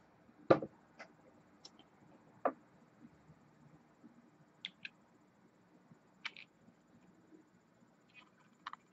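Small scattered clicks and taps of a rebuildable vape atomizer and mod being handled and capped, about ten in all, some in quick pairs, the loudest about half a second in.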